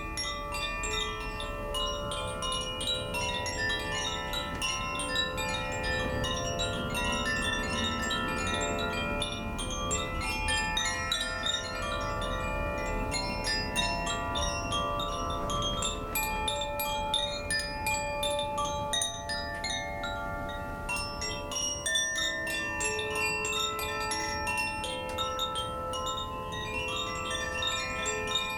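Koshi chimes played by hand: a steady stream of overlapping tuned metal notes, each struck inside the bamboo tube and left to ring on while new ones sound over it, bright and high.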